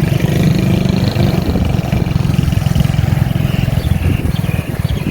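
Motor scooter engine running steadily while riding.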